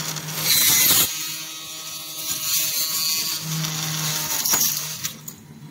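Automatic screw-driving machine at work: its electric screwdriver spindles hum while running screws in, with a loud sharp hiss about half a second in and a couple of sharp clicks near the end.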